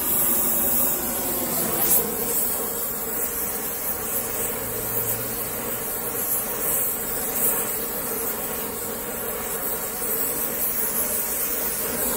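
Gas torch flame burning steadily as it heats an iron rivet, a continuous hiss that keeps an even level.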